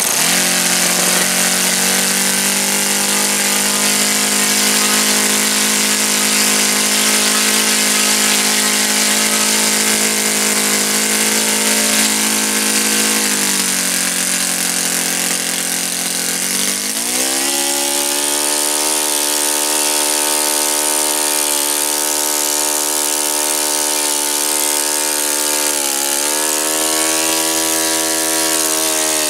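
A freshly rebuilt OS FS-91 Surpass four-stroke glow engine turning a 14x6 propeller catches and runs steadily. About thirteen seconds in its pitch drops as it slows, and at about seventeen seconds it speeds up to a higher, steady pitch, with one brief dip near the end.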